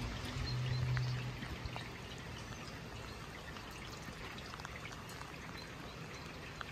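Light rain falling, a steady hiss with trickling, dripping water. A low hum runs under it for the first second and a half.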